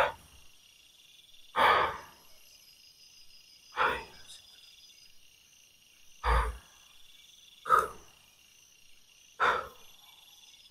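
Crickets and other night insects chirping steadily in high trills, broken by five short, louder sounds about two seconds apart. One a little past the middle carries a low thud.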